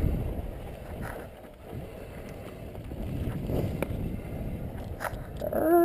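Mountain bike rolling fast down a dirt singletrack: wind rushing over the helmet-mounted microphone and tyre and drivetrain rumble, with a couple of sharp knocks from the bike over bumps. A brief pitched sound rises up near the end.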